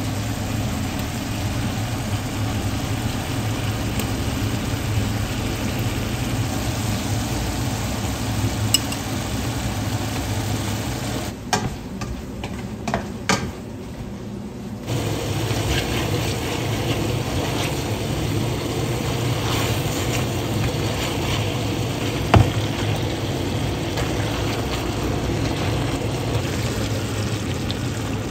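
Sliced vegetables and sauce sizzling and simmering in a stainless steel pot over a steady low hum, with a spatula stirring and a few sharp clicks of utensils against the pot around the middle.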